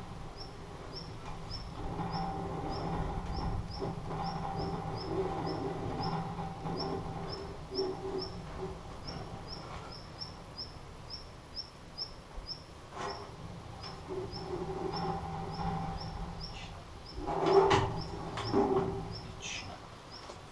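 A bird repeats a short, high chirp evenly about two to three times a second over a steady low hum. Near the end comes a loud metal clank and rattle as the old stove's oven is handled.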